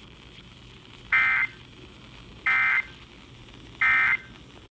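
NOAA Weather Radio sending its three end-of-message data bursts: three short, buzzy, two-tone digital chirps about a second apart over faint radio hiss, marking the end of the alert. The broadcast audio then cuts off suddenly near the end.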